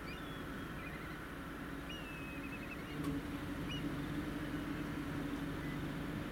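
A few faint, high chirping calls, one a held note ending in a quick run of short notes, over a steady low hum that grows louder about three seconds in.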